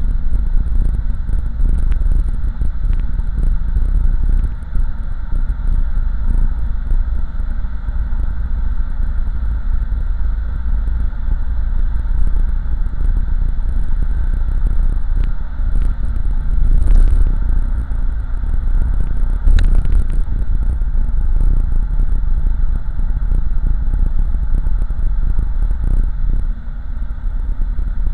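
In-cabin sound of a 1987 Oldsmobile Cutlass with a swapped-in 5.3-litre LS V8, cruising at a steady road speed: a steady, low engine and exhaust sound mixed with road and tyre noise.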